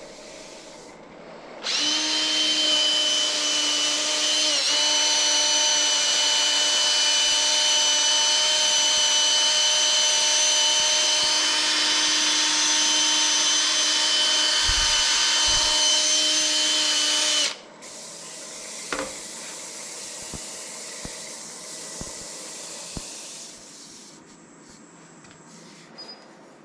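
18V cordless drill running at a steady speed for about sixteen seconds, spinning a foam-backed sanding disc against turned wood on the lathe: a steady motor whine over a sanding hiss that starts and stops abruptly. After it stops, a fainter steady hum carries on for a few seconds.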